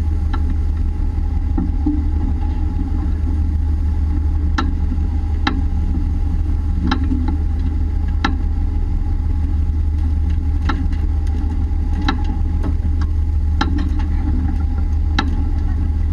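Fishing boat's engine running with a steady low drone, with sharp knocks coming about every one to two seconds.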